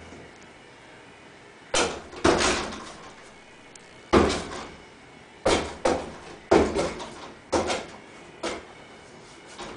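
A cat jumping up against bifold closet doors, its paws striking the door panels in a series of about nine irregular thumps and bangs, starting about two seconds in.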